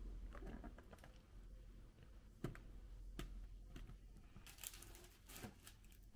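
Faint scattered clicks and light taps, one sharper click about two and a half seconds in, and a brief crinkling rustle near the end: small handling noises.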